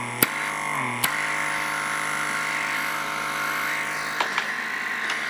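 Steady hum of a microdermabrasion wand's vacuum pump as its suction tip is worked over the nose, the pitch dipping briefly about a second in. Sharp clicks near the start and two lighter ones about four seconds in.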